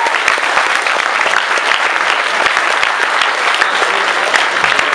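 Audience applauding steadily, a dense mass of hand claps with no break.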